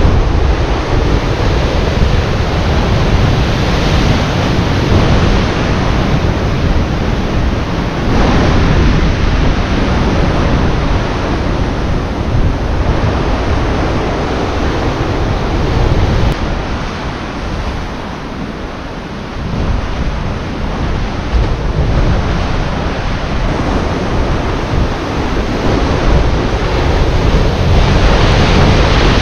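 Rough sea surging and washing against a rocky shore, rising and falling in slow swells, with wind rumbling on the microphone.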